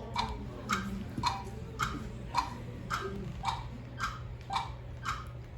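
Steady clock-like ticking, about two ticks a second, over a low hum in a theatre hall.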